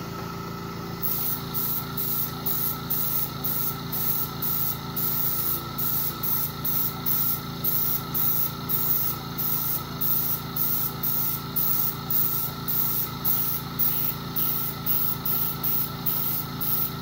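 Airbrush spraying shellac-based dye in a rapid series of short hissing puffs, about two to three a second, starting about a second in. Under it the small airbrush compressor pump runs with a steady hum.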